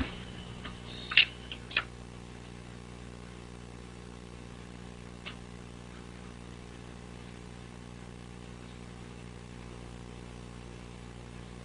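Steady low hum with a couple of sharp clicks about a second in and a faint click near the middle.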